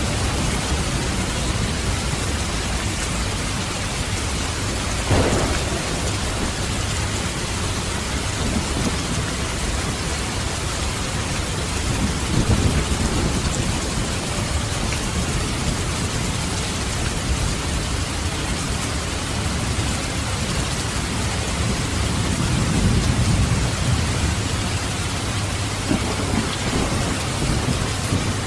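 Steady rain with thunder: a sharp crack about five seconds in, then low rolling rumbles around the middle and again later.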